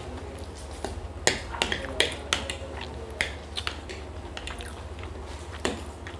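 Metal forks clicking and scraping against plates as chowmein noodles are twirled and eaten, with chewing between the clicks. The sharp clicks come irregularly, several in a cluster in the first half and one more near the end.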